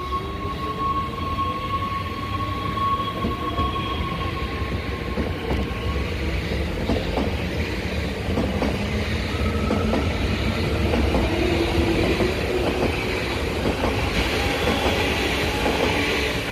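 NS Sprinter Lighttrain electric multiple unit pulling away: its traction drive gives a rising whine with a steady high tone over the first few seconds. After that come the growing rumble and clatter of the wheels on the rails, loudest near the end.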